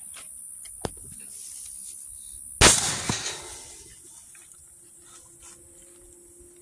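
A single gunshot about two and a half seconds in, dispatching a trapped boar at close range, with a short echoing tail. A faint click comes about a second before it.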